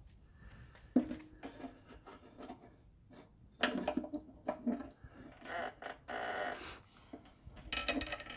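Steel lawn mower handle tubes knocking, clinking and scraping against the deck's handle bracket as the lower handle is worked back into place. A few sharp knocks, with a short stretch of rattling and scraping near the middle.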